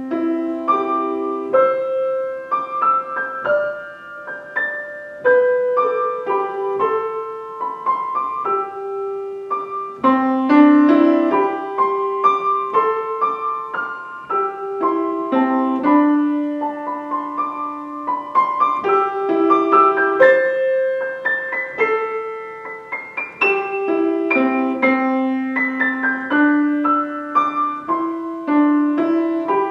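Solo piano playing a flowing melody over chords, one note after another at a moderate pace.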